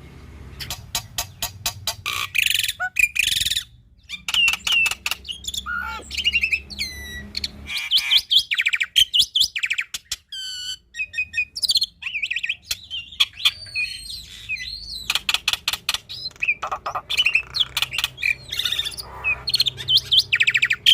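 Black-winged myna (jalak putih) singing a long, varied song packed with mimicked calls: fast rattling trains of notes, clear whistles and sliding downward phrases, one after another with barely a pause.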